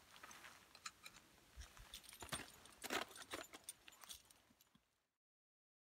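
Faint metallic clinking of ice-climbing hardware, carabiners and ice screws knocking together on a harness gear rack, with a few sharp clinks. Near the end the sound cuts off to dead silence.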